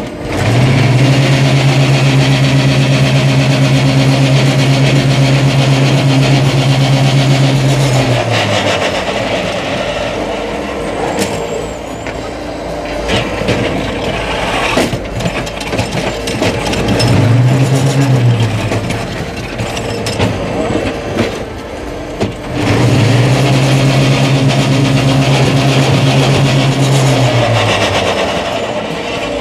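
Concrete block machine running a production cycle. Its electric vibrator motors spin up into a loud steady hum, hold it for about eight seconds and wind down. They run again briefly, then for about five seconds near the end, with rattling and clanking of the machine in the gaps.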